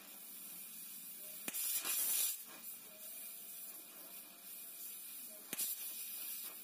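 Gas welding torch hissing steadily while a filler rod is melted into an exhaust pipe joint. Two sharp pops, about a second and a half in and near the end, with a louder rush of hiss for under a second after the first.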